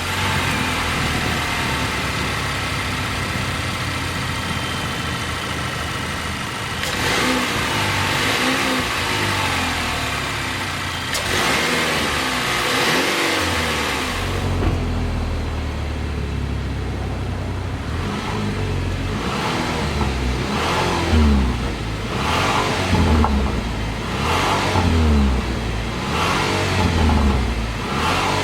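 2020 Chevrolet Equinox's 2.0-litre turbocharged four-cylinder engine running just after start-up, revved twice in the first half, then blipped repeatedly with short quick revs about every two seconds.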